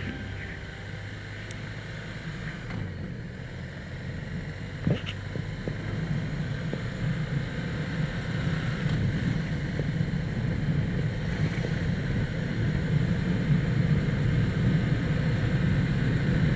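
BMW R1200RT's boxer-twin engine running along with wind and road noise, heard from the bike, growing louder through the second half. A single sharp knock about five seconds in.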